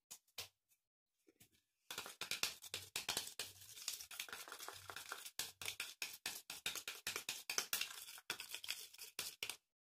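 Scissors stirring a sticky homemade slime mixture in a plastic cup: dense wet crackling and scraping with rapid clicks, starting about two seconds in and stopping abruptly near the end, after a few faint clicks.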